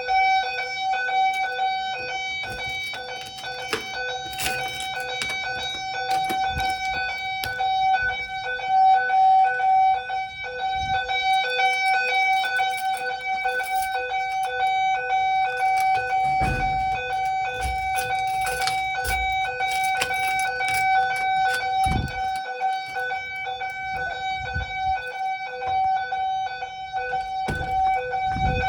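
Simplex TrueAlert ES fire alarm notification devices sounding a steady, unbroken alarm tone during an alarm test. Scattered clicks and a few low thumps are heard under it.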